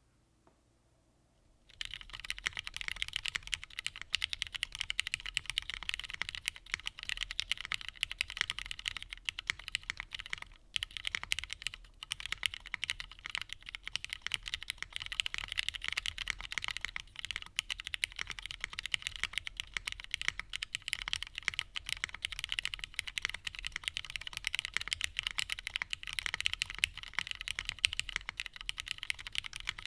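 Continuous typing on a plateless custom mechanical keyboard with lubed, retooled Cherry MX Black linear switches and GMK keycaps: a dense run of keystroke clacks that starts about two seconds in, with a couple of short pauses midway. The sound lacks some of its lower tones, which the builder puts down to the rubber Geon case feet not being fully seated.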